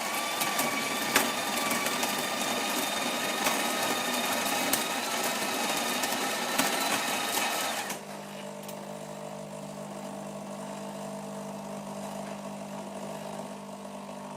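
KRUPS fully automatic coffee machine running: a loud, gritty mechanical noise with a steady whine and scattered clicks, which drops about eight seconds in to a quieter, steady low hum.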